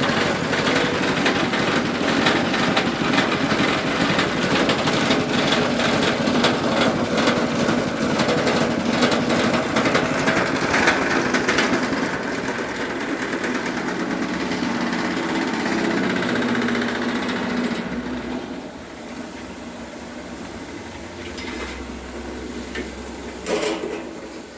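Multi-function feed chopper machine running, with a rapid clatter for roughly the first half, then a steadier drone that drops off about 18 s in. A brief knock near the end.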